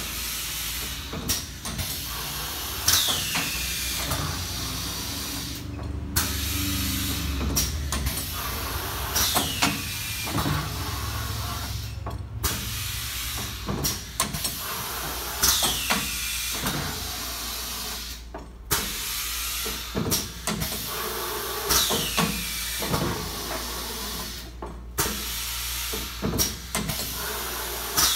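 Pneumatic flatbed screen printer running through its automatic print cycle about once every six seconds. Air cylinders hiss, with a falling whistle each cycle, and the moving screen and squeegee carriage give clicks and clunks. A low hum sounds through the first ten seconds or so and then stops.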